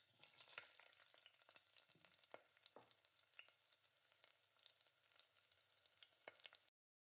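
Thick curry sauce simmering in a pan, giving a faint sizzle with scattered small pops and crackles; it cuts off suddenly near the end.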